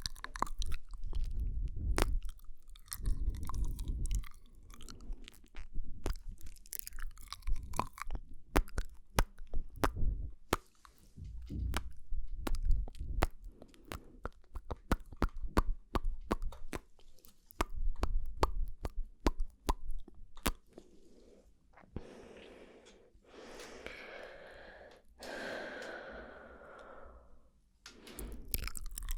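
Close-miked ASMR mouth sounds: rapid wet clicks and smacks of tongue and lips, then a few seconds of breathy, airy mouth sounds near the end.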